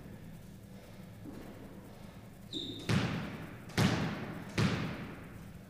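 Squash ball knocked about by the player readying to serve: three sharp smacks just under a second apart, each ringing off the walls of the enclosed squash court, just after a brief squeak of a shoe on the wooden floor.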